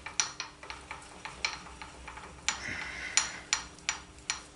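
Milling machine cutting a slot in a small metal plate with an end mill: the spindle runs with a steady low hum while the cut gives an irregular run of sharp ticks and clinks, which stop near the end.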